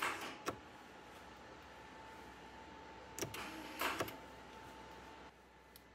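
Electric shift actuator of a 3rd-generation 4Runner multimode transfer case, swapped into a first-generation Toyota Tacoma, running with a steady whine for about five seconds as it locks the center differential. Clicks at the button press open it, a couple of clunks come partway through, and it stops near the end.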